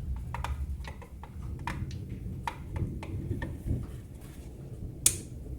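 Lathe-turned begleri beads with brass inserts clicking and tapping as they are handled, in an irregular series of light clicks, with one sharper, louder click near the end.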